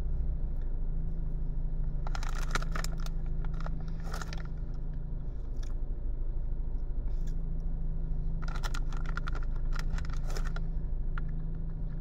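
Two bouts of crunching and crackling, each a couple of seconds long, over a steady low hum in a car's cabin.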